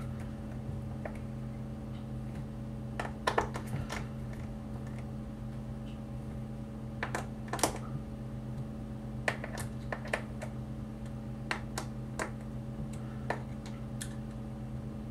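Scattered small clicks and taps of a precision screwdriver and fingertips on a laptop's hard drive mounting screws and bay as the screws are turned snug, over a steady low hum.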